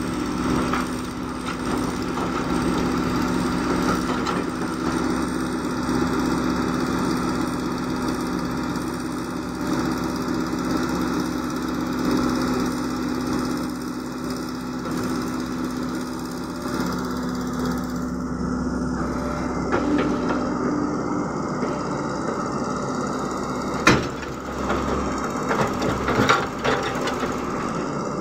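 Caterpillar E120B hydraulic excavator's diesel engine running steadily while it digs. A single sharp knock comes about two-thirds of the way through, and a few more follow near the end.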